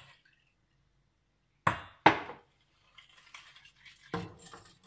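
Stainless steel saucepan and glass jug being set down: two sharp knocks about two seconds in, then a spoon scraping and clinking in the pan, with another knock near the end.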